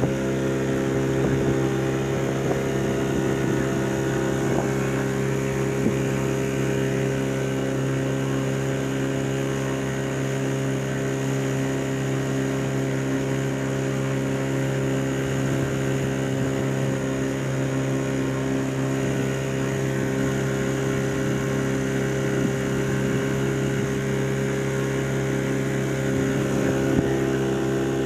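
Motorboat engine running at a steady speed, an even drone that holds one pitch throughout.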